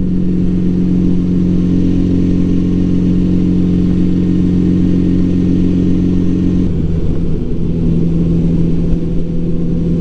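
1984 Honda Gold Wing Aspencade's flat-four engine running at a steady cruise on the road. Its pitch dips slightly about seven seconds in, then holds steady again.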